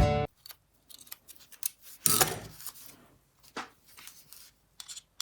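Irregular short scraping strokes of a steel hex screwdriver bit being filed down at its edges. A loud, steady pitched hum cuts off just after the start.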